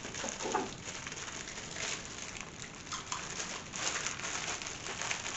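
Plastic packaging crinkling and rustling as a wrapped item is cut and pulled open.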